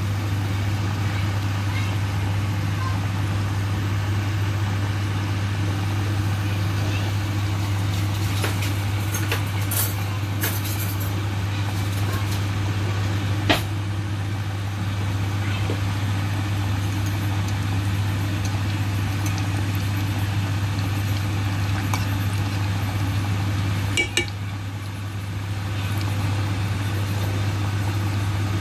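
Chicken nuggets frying in hot oil, a steady sizzle under a continuous low hum, with a few sharp clinks of a utensil against the pan.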